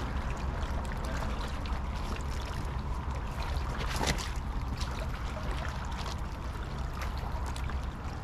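Choppy river water lapping and splashing against a rocky bank over a low steady rumble, with one sharper knock or splash about four seconds in.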